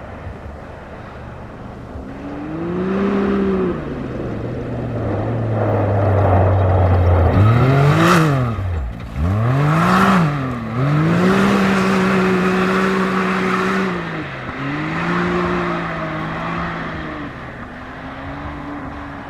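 A rally-raid car's engine revving hard. Its pitch climbs, holds and drops several times with throttle and gear changes, and it dips sharply twice in the middle, where it is loudest.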